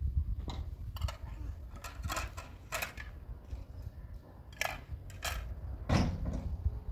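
Scattered light clinks and knocks of kitchenware: a metal kettle set down by a charcoal brazier and plates and glass jars handled on a floor rug, about eight separate strikes with the loudest about six seconds in, over a steady low rumble.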